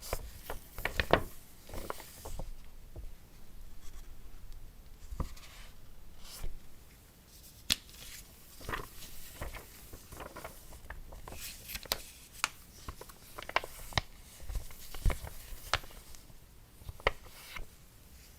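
Hands handling objects close by: irregular sharp clicks and taps, a few louder than the rest, with rustling and scraping in between.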